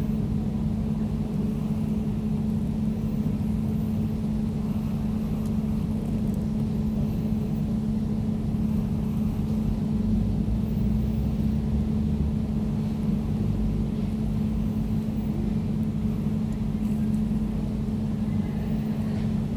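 Air conditioner running steadily: a constant low hum with a strong steady tone and an even rumbling whoosh beneath it.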